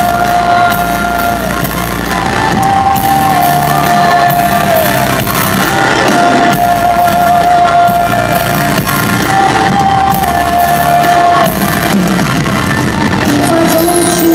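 Live pop music played loud in an arena: a woman's voice holding long, wavering notes over a band with electric guitar, with crowd shouts and whoops mixed in.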